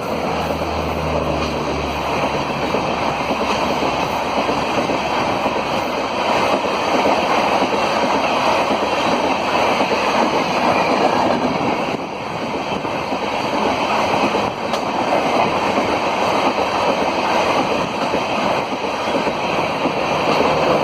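Express passenger train running past at speed: a loud, steady rush of wheels on rail and coaches going by, with wind on the microphone. A low hum in the first two seconds fades as the coaches keep streaming past.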